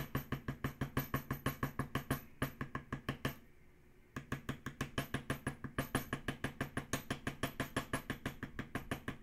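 Rapid, even mallet taps, about five a second, on a metal leather-tooling tool being walked along the vein lines of damp, cased leather on a marble slab. The tapping stops for nearly a second a little past the middle, then picks up again at the same pace.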